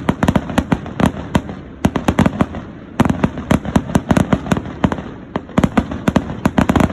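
A dense barrage of fireworks exploding: several sharp bangs and cracks a second, with a short lull just before the three-second mark.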